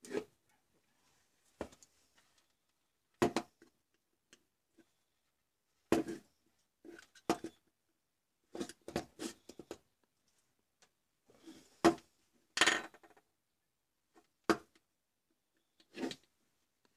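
Plastic casing of a small plug-in 12V transformer charger being handled and set against a workbench: irregular sharp clicks and knocks, some in quick clusters, with quiet gaps between.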